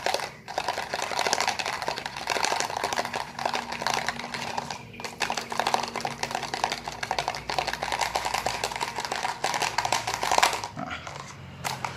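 Plastic cup shaken by hand with the small seized line-roller bearing of a fishing reel inside, a fast continuous rattle and clatter, to shake loose the rust jamming the bearing's balls. The shaking stops shortly before the end.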